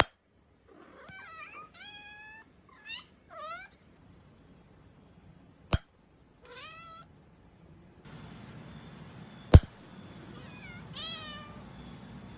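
A cat meowing, a run of short meows that rise and fall in pitch. Three sharp clicks break it: one at the start, one a little before six seconds in, and the loudest about nine and a half seconds in.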